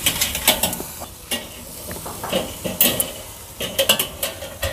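Steel tongs clinking and scraping on metal as the charcoal baskets of a kettle grill are shifted under the hinged grate, to switch to indirect heat. Several sharp clinks come over the steady sizzle of bacon-wrapped pork medallions on the grate.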